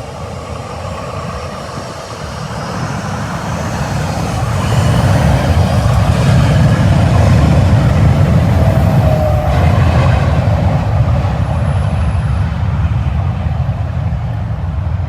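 Jet engines of a Southwest Airlines Boeing 737, building over the first few seconds to a loud, steady rumble that holds, then eases slightly near the end.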